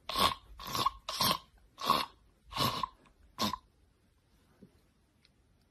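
A person making six short, raspy, cough-like choking sounds, about one every two-thirds of a second, stopping about three and a half seconds in.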